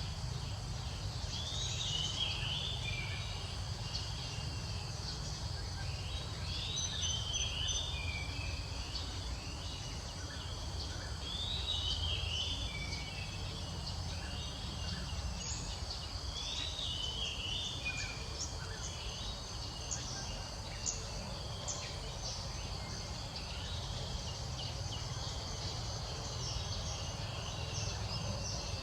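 Outdoor ambience: a bird repeats a short chirping phrase about every four to five seconds, over a steady insect hum and a low rumble.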